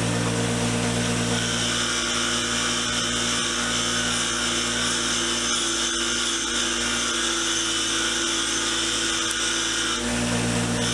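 Motorised wire wheel running steadily while derusted steel parts of an adjustable wrench are pressed against it. The scratchy brushing hiss of the bristles on the metal sets in about two seconds in and eases off near the end, over the constant motor hum.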